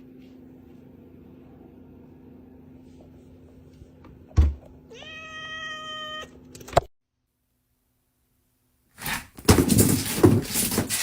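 A thump, then a cat gives one drawn-out meow at a steady pitch lasting about a second. After a sudden cut and a short silence, a loud noisy scuffling stretch comes near the end.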